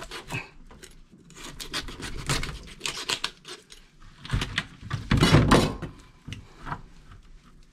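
Gloved hands and a knife working a rockfish inside a mesh net bag in a plastic crate: a run of quick scrapes, clicks and knocks, with a heavier thump and rustle about five seconds in.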